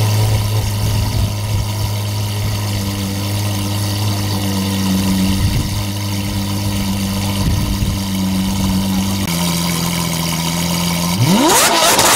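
Lamborghini Aventador's V12 idling with a steady low note, then revved sharply about eleven seconds in, the pitch shooting up and the exhaust crackling.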